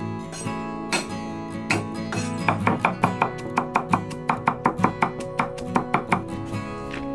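A steel cleaver chopping garlic on a wooden chopping board, a quick run of sharp knocks at about four to five a second from about two seconds in until near the end, with a few single chops before it. Background guitar music plays under it.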